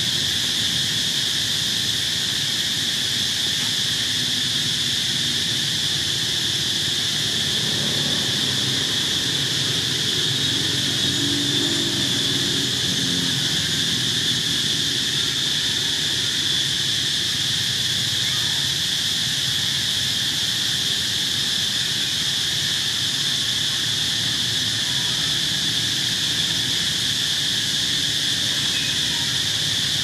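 Steady chorus of insects in the forest: a continuous high-pitched buzzing drone that never lets up.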